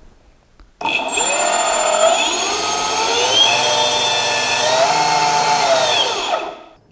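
Two brushless weapon motors of a 30-pound featherweight combat robot spun up by radio control, turning the weapon pulley. A whine starts suddenly about a second in, rises in pitch, wavers, then winds down near the end.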